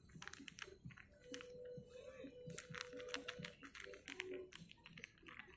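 A cat crunching dry kibble from a plastic container, a quick irregular run of small crisp clicks. A faint steady hum sits underneath for about two seconds in the middle.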